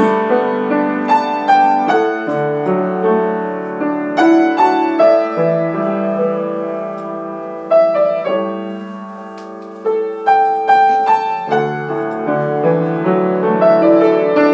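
Piano playing alone, as the accompaniment of an art song in a passage without the voice: broken chords and a melody line, struck notes ringing and fading. The playing thins and fades for a moment about two-thirds of the way in, then picks up again with new chords.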